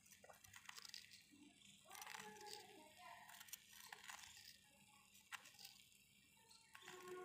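Faint clicks and scrapes of a small metal spoon against a miniature clay spice box and clay pot as spices are scooped and stirred into chopped vegetables. Background music with held tones comes in near the end.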